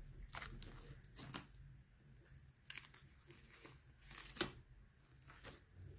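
Plastic shrink-wrap on a Blu-ray steelbook being picked open and torn by fingers: a few short, faint crackles and rips spaced out, with quiet between.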